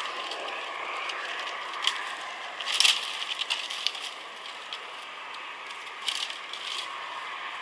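Twigs and branches being snapped and broken by hand: scattered sharp cracks and crackles, the loudest cluster about three seconds in, over a steady background hiss.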